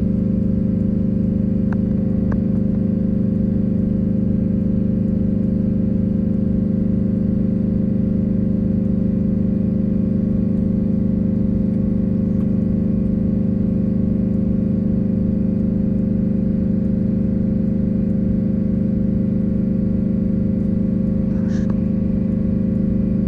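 Old bus engine idling steadily, heard from the driver's seat, a constant low hum while its engine-driven air compressor builds tank pressure.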